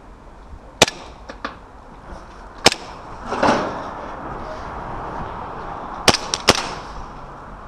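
Airsoft guns firing, sharp single pops scattered through the exchange, with a quick string of three near the end. About halfway there is a brief burst of noise.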